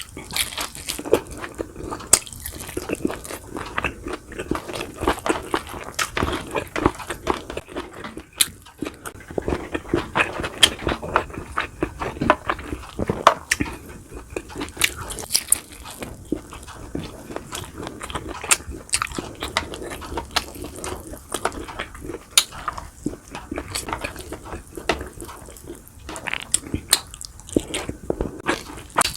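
Close-miked eating: a person chewing and biting into fried milkfish and garlic fried rice, with crunching and many short, sharp mouth clicks and smacks throughout.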